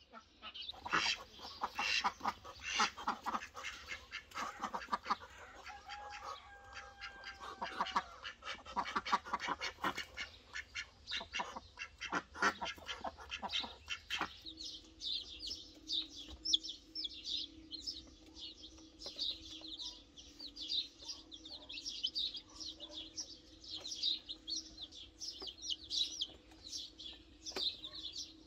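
Farmyard poultry calling in a busy run of short clucks and calls. About halfway through, this gives way to a chick peeping in a quick series of high cheeps, about three a second.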